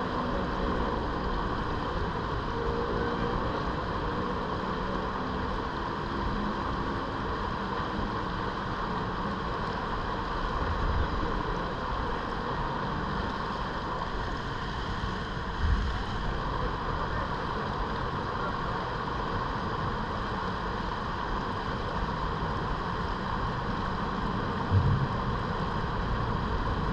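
Rushing river water: a shallow rapid churning steadily beside a kayak. A few brief low thumps stand out three times along the way.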